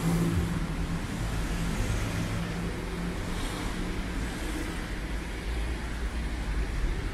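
Road traffic on a wet city street: a steady low engine hum from cars, with a hiss over it and a brighter swish about halfway through, as of tyres on wet asphalt.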